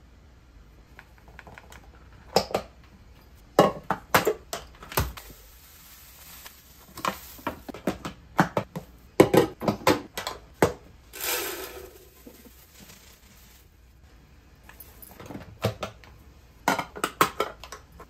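Hard plastic clicks and knocks as clear OXO POP canisters and their push-button lids are handled and snapped shut on a stone counter, with a brief rushing sound just past the middle.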